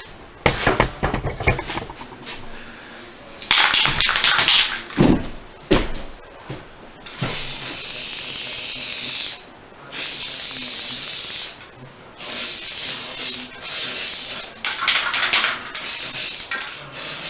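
Aerosol spray can of Rust-Oleum hammered silver paint spraying in repeated short bursts, each about one to two seconds long, with brief pauses between. Clattering and knocking come before the spraying starts.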